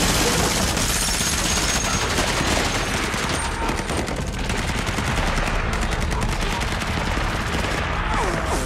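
Rapid automatic rifle fire: a dense, continuous run of shots overlapping one another as in a heavy firefight.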